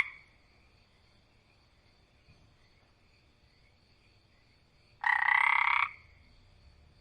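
Frog croaking: one loud, rasping call lasting nearly a second, about five seconds in, with the tail of an earlier call fading right at the start. A faint steady high-pitched trill runs underneath.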